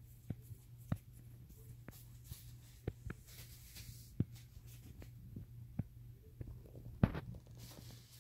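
Faint household sounds of cats at play: scattered light taps and knocks with soft rustling over a steady low hum, with the loudest knock about seven seconds in.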